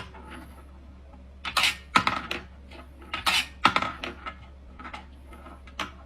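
Irregular sharp clicks and clinks of small hard objects knocking, a dozen or so spread unevenly, over a steady low hum.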